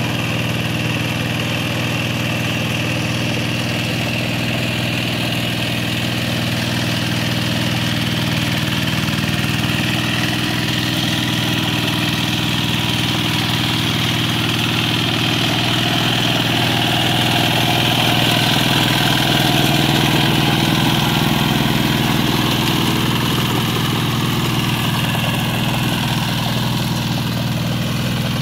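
Kubota K700 walk-behind power tiller's single-cylinder diesel engine running steadily as it rotavates a flooded paddy field.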